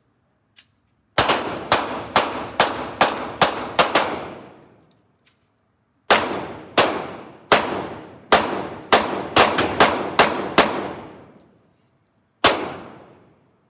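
Semi-automatic pistol fired in strings at an indoor range, each shot a sharp crack with a short echoing tail. About eight shots come roughly half a second apart, then after a pause about ten more that speed up toward the end, and a single last shot near the end.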